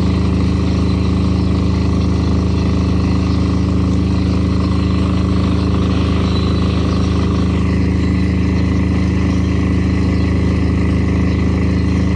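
Diesel generator in a silent-type soundproof canopy running steadily at constant speed, an even low engine drone.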